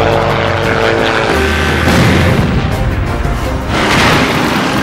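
Action-film soundtrack: tense score mixed with vehicle engine and helicopter noise. A deep rumble builds about a second and a half in, and a boom comes about four seconds in.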